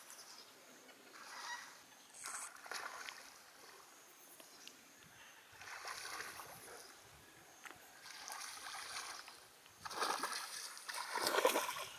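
Water splashing in repeated bursts as a fish strikes a topwater frog lure and thrashes at the surface on the line. The splashing is loudest near the end, as the fish is drawn to the bank.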